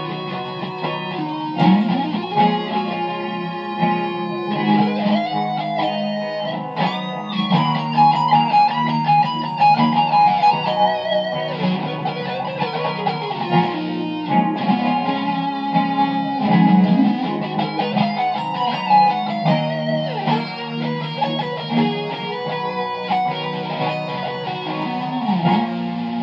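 Electric guitar improvising a lead line of single notes with string bends and vibrato over sustained lower chords, on an Em–C–Bm7–Am progression.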